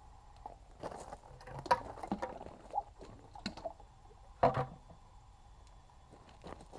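Scattered knocks and clattering, the two loudest about a second and a half apart, over a faint steady hum.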